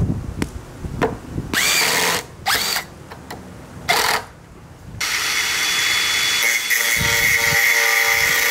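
Power drill run in three short bursts, each spinning up in pitch. Then it runs steadily for the last few seconds.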